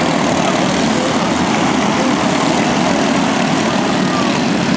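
Small four-stroke engines of micro sprint racing karts running at speed on the track, a loud, steady mix of engine noise.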